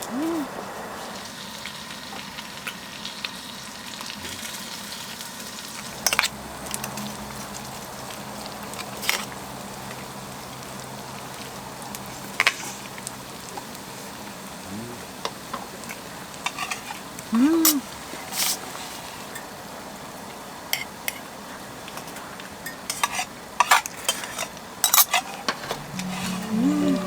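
Food frying and sizzling in a pan: a steady hiss, with sharp clicks and clatters of a cooking utensil against the pan here and there.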